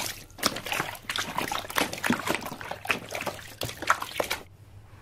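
Wet splashing and sloshing noises, a quick irregular run of splashes that stops about four and a half seconds in.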